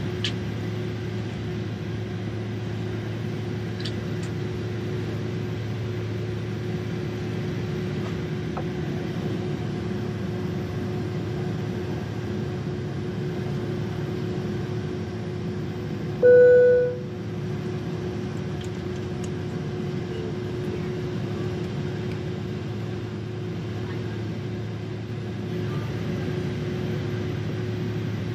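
Steady cabin drone of a Boeing 767-300ER's jet engines at idle, heard from inside the cabin while the airliner waits to take off. About sixteen seconds in, a single short, loud chime-like tone sounds for about half a second.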